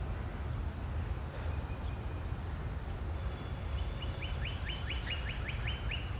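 A bird sings a quick run of about nine short, evenly repeated high notes over the last two seconds, over steady low outdoor background noise.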